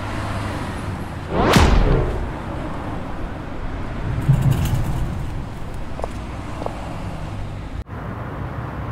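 Sound-effect fly-by whoosh over steady street traffic noise. The pass-by comes about a second and a half in, its pitch dropping fast as it goes past, and a second, lower rush follows near the middle.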